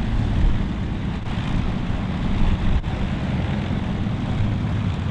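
Avro Lancaster NX611's four Rolls-Royce Merlin engines running steadily as the bomber taxis, an even drone.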